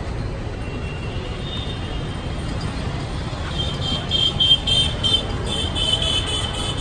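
Street traffic, a steady low rumble of engines, with a run of short high-pitched beeps, about three a second, starting about halfway through.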